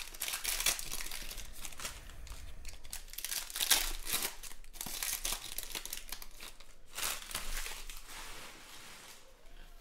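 Foil wrapper of a Panini Prizm football card pack crinkling and tearing as it is ripped open by hand, dying away near the end.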